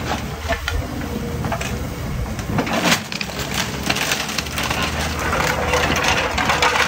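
Hyundai excavator's diesel engine running steadily as its bucket breaks down a house's timber roof and tiles. The wood cracks and the debris clatters throughout, with a sharp crash about three seconds in and denser crunching near the end.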